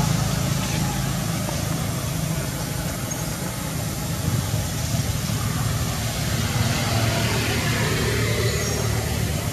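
A steady low engine hum, like a motor vehicle idling, over a constant noisy background.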